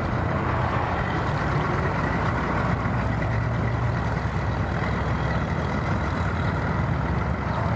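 Bass boat outboard motor running steadily at low speed, a constant low hum.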